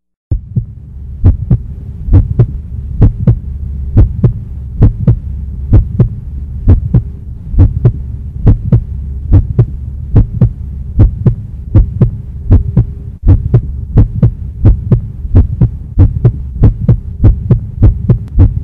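Steady low droning hum with loud, evenly spaced thumps about twice a second, like a heartbeat: a suspense sound effect, starting about half a second in.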